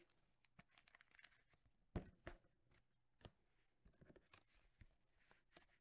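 Faint handling of trading cards and plastic card sleeves: scattered soft clicks and rustles, with one sharper knock about two seconds in.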